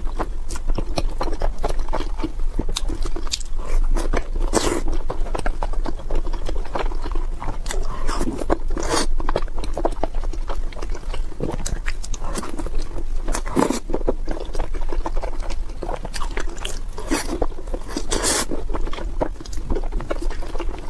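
Close-miked chewing and biting of brown sugar bread: irregular wet mouth smacks and clicks, with a few louder bites scattered through.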